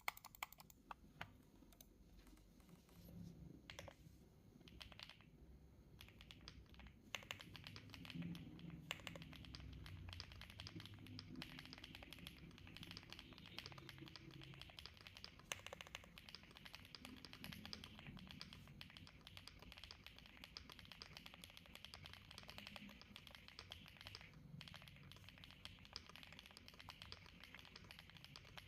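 Typing on a Rainy 75 mechanical keyboard in its stock configuration: quiet keystroke clacks, a few scattered ones at first, then a continuous run of fast typing from several seconds in.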